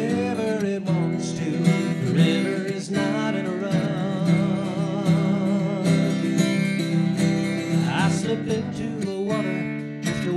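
Steel-string acoustic guitar strummed and picked as a folk song accompaniment, with a voice holding a long wavering note in the middle.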